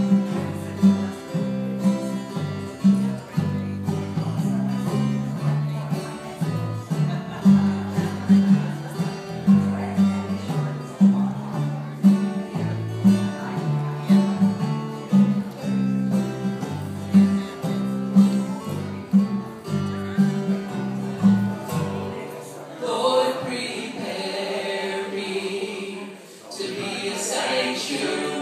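Vocal group singing a gospel song to guitar accompaniment with a steady plucked bass line. About 22 seconds in, the instruments drop out and the voices carry on a cappella.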